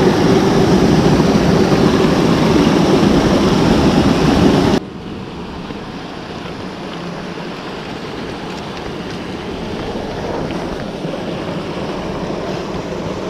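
A small rocky mountain stream rushing and splashing over stones, loud and close for about the first five seconds. Then it cuts suddenly to a quieter, steady flow of water from a small cascade.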